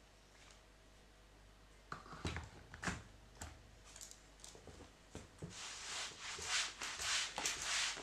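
A few knocks and clicks, then repeated rubbing strokes from about two-thirds of the way in: a mop being scrubbed back and forth across a hard floor.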